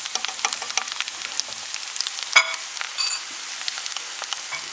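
Hot oil sizzling and crackling in a frying pan under an egg fried on grated potatoes. A sharp clink comes about halfway through, followed by a brief ringing tone.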